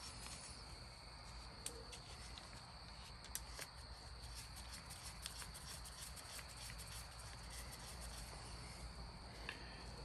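Insects chirring in a steady high-pitched drone, with a few faint clicks of metal parts being handled as a small engine cover is fitted back on.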